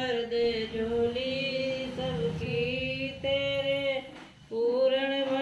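A woman's voice chanting in long held notes at a steady pitch, devotional bhajan-style singing. The voice drops away briefly about four seconds in, then resumes on another held note.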